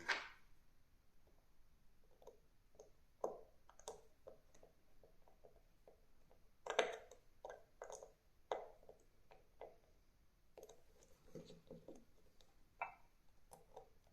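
Faint, scattered small clicks and taps from close handling of a wristwatch and small tools, with a few sharper knocks, the loudest right at the start and about seven seconds in.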